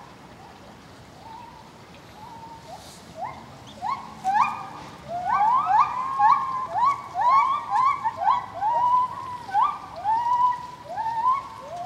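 Geoffroy's spider monkeys calling: many short high calls, each sweeping up and then holding, a few at first and then dense and overlapping from several callers through the second half.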